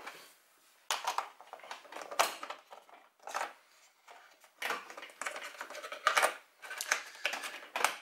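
Plastic miniatures clicking and clattering against a plastic box insert tray as they are handled and set down, in an irregular run of small knocks.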